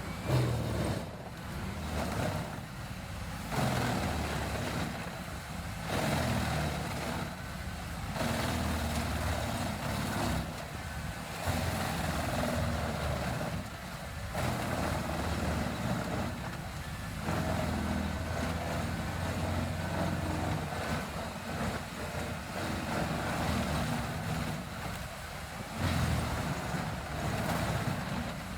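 Large horizontal wood grinder's engine running heavily as it works, a low machine drone with grinding noise over it. The sound shifts abruptly every few seconds as the footage cuts between shots.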